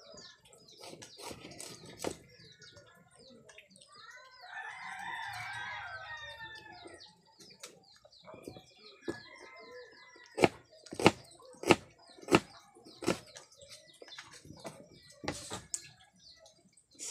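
Kitchen knife chopping a red onion on a plastic cutting board: sharp taps about half a second apart, loudest in the second half. A rooster crows once, a long call about four seconds in, and small birds chirp in the background.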